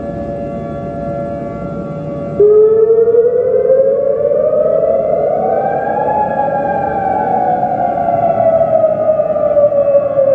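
Civil defense air-raid siren. A steady tone is held, then a little over two seconds in a louder wail starts abruptly, rising in pitch for about four seconds and then slowly falling.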